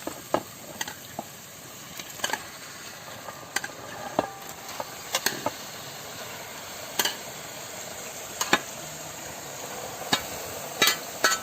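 Marinated chicken frying in onion-tomato masala in a pan as it is stirred: a steady sizzling hiss with irregular sharp clicks and scrapes of the spoon against the pan.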